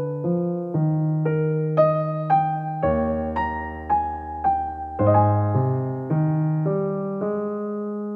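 Background music: a gentle piano melody of single struck notes, about two a second, over held low notes.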